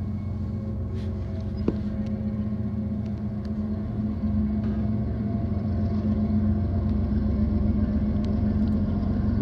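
Diesel locomotives of a BNSF intermodal freight train running with a steady low rumble and engine hum that slowly gets louder as the train comes closer. A single sharp click comes about two seconds in.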